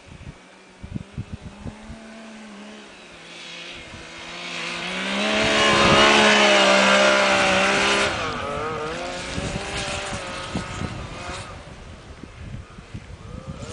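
Yamaha snowmobile engine coming up at speed, passing close by and speeding away: the engine note rises and grows loud as it nears, then drops in pitch just after the pass and fades off.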